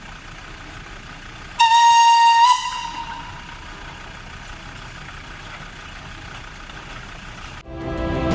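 A single loud whistle or horn blast, about a second long, one high steady pitch that cuts in suddenly and then fades away, over a faint steady background rumble.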